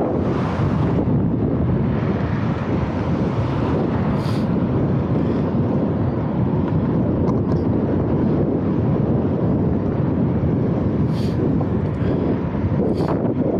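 Wind buffeting the microphone of a camera carried on a moving bicycle: a loud, steady, rushing rumble, with a few brief faint higher sounds about four seconds in and near the end.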